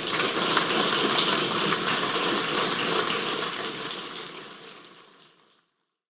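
Audience applauding at the end of a lecture, a dense steady clatter of many hands that fades out from about three and a half seconds in and stops.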